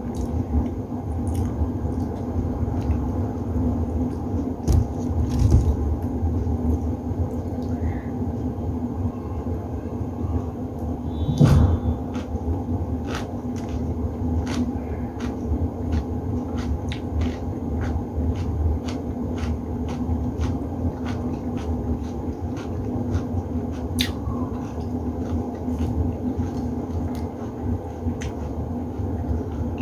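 Steady low hum from a running appliance, with scattered small clicks and taps of fingers handling food and plates while eating. One louder knock comes about halfway through.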